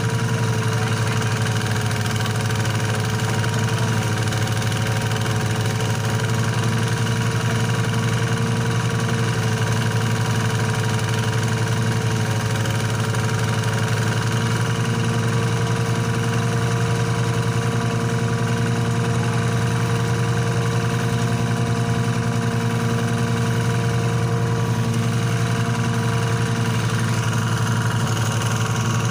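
Portable rice thresher driven by a small engine, running steadily as rice stalks are fed into its drum: an even, unbroken mechanical hum.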